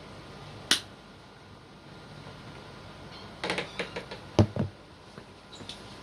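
Sharp clicks and knocks: a single click about a second in, then a quick cluster of clicks and heavier knocks between about three and a half and four and a half seconds in.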